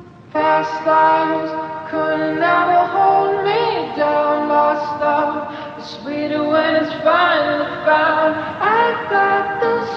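Background music of sung voices, a capella in style, starting abruptly just after the start.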